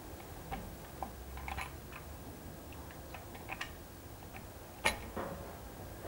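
Small metal clicks and ticks as oil pump retaining bolts and lock-tab washers are fitted by hand on the pump flange of an Austin Midget A-series engine block, with one sharper click a little before five seconds in.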